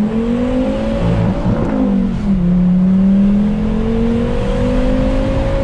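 Turbocharged Volvo inline-five with a straight-piped exhaust (catalytic converters kept, no muffler or resonator), heard from inside the cabin while accelerating. The engine note rises, drops at a gear change about two seconds in, then climbs steadily again.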